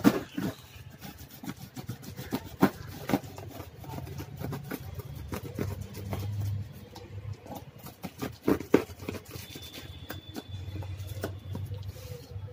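A knife cutting and scraping along the packing tape of a cardboard shipping box, with hands rubbing and knocking on the cardboard: irregular scratching and several sharp knocks over a low steady hum.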